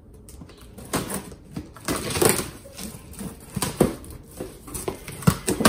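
Scissors slitting the tape on a cardboard box, then the cardboard lid pulled open: irregular scraping, crackling and rustling with a few sharp clicks, busiest about two seconds in and near the end.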